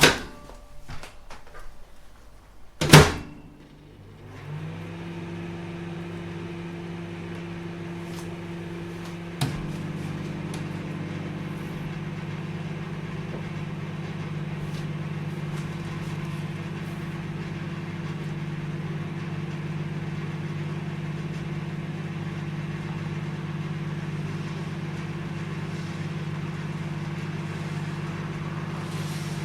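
Microwave oven: two sharp clicks in the first three seconds, the second the loudest, then the oven starts up about four seconds in with a steady low hum. A click about nine seconds in, after which the hum grows slightly louder and runs steadily.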